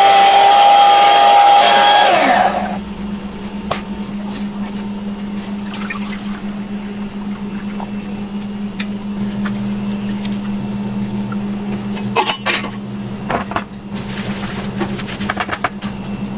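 Electric hand mixer running at high speed in a steel pot of egg mixture, a loud whine that drops away about two seconds in. After that a quieter steady low machine hum continues, with a few scattered clicks and knocks.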